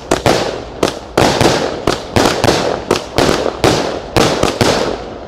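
49-shot consumer firework cake ('San 49 colpi alta', Fonti Pirotecnica) firing in rapid succession: sharp bangs of launches and high aerial breaks, about three a second, each dying away before the next.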